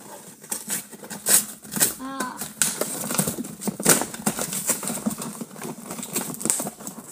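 Cardboard-and-plastic amiibo box being ripped open by hand, a quick irregular run of tearing and crinkling rips, with a short vocal grunt about two seconds in.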